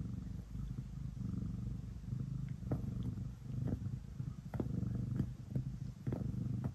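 Domestic cat purring steadily, the low purr rising and falling in pulses about a second long. From about two and a half seconds in, soft ticks come roughly twice a second as its paws knead the plush bed.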